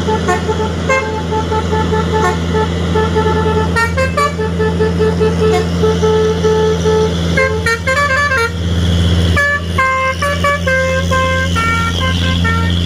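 Large truck's multi-tone musical horn playing a tune of short notes at changing pitches, sounding over the steady drone of the engine as the truck passes close by.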